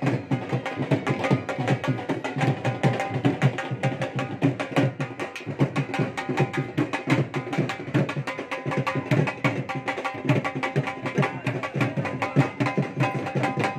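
Dhol drum beaten in a fast, continuous dhamal rhythm, with dense, even strokes that carry a deep boom.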